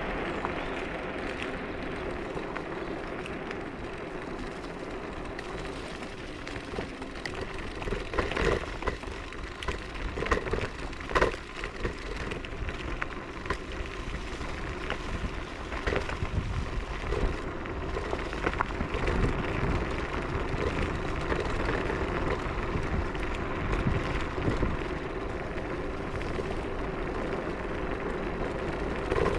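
Techlife X7S electric scooter being ridden: a steady hum with tyre and wind noise, and a cluster of sharp knocks and rattles about eight to twelve seconds in, with one more a few seconds later.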